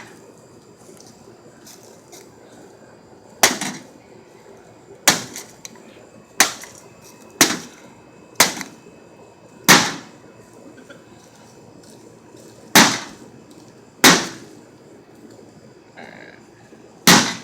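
Golf club striking a microwave oven's metal casing: nine sharp whacks at uneven intervals, one to three seconds apart.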